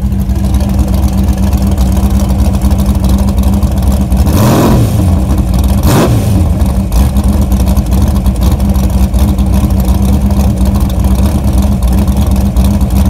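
Heavy rain pelting a vehicle's windshield and roof, heard from inside the moving cab along with a steady engine and road rumble; a brief swell in the noise comes about four to five seconds in.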